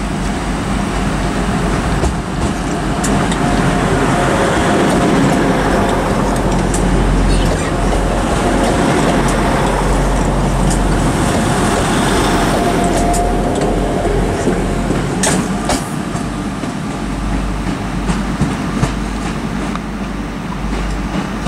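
Class 175 diesel multiple unit pulling out of the station, its engines working as it gets under way and then easing as it draws away. A steady whine runs through the loudest part, and a few sharp clicks come about fifteen seconds in.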